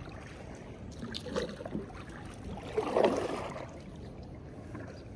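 Kayak paddle strokes through calm pond water: swishing, splashing pulls, the loudest about three seconds in.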